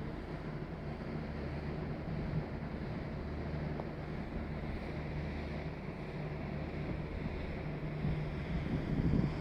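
Steady low mechanical hum with wind buffeting the microphone, the wind gusting harder near the end.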